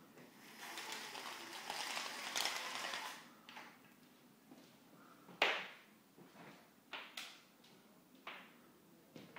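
Horizontal window blinds rattling as they are drawn up, for about three seconds. Then a sharp knock about five seconds in, followed by a few lighter clicks and taps.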